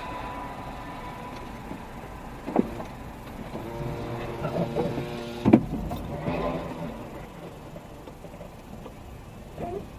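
Motorcycle engines revving as the bikes pull away from the traffic light, then a sharp bang about halfway through, the loudest sound, as a motorcycle crashes in the intersection. Steady road and engine noise runs underneath.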